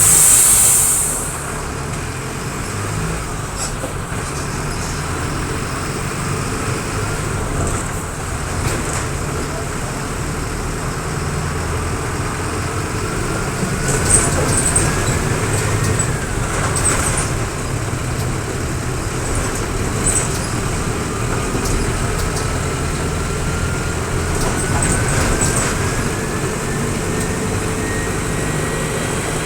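Mercedes-Benz OF-1722M bus's four-cylinder turbodiesel running under way, with a whistling whine that rises slowly in pitch as it pulls, twice. A loud hiss of air dies away in the first second.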